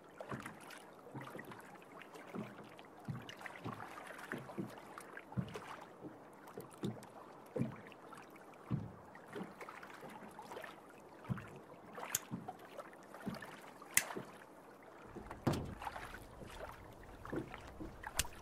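Small waves lapping against a moored boat's hull in soft, irregular knocks, with a few sharp clicks. A low hum comes in near the end.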